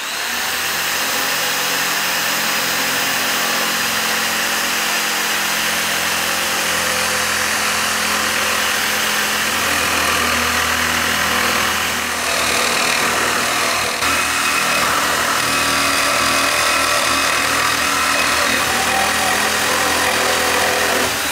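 Reciprocating saw with a bi-metal metal-cutting blade sawing steadily through thick angle steel, about 4 mm thick.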